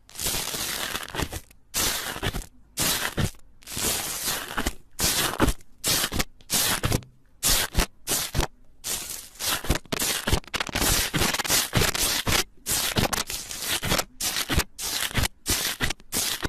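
Slime being squeezed and stretched by hand, sounding in quick, irregular spurts, each under a second, with brief silences between.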